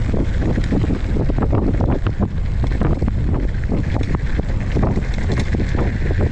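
Wind buffeting the microphone of a camera on a cross-country mountain bike in motion, with many short clicks and knocks mixed in.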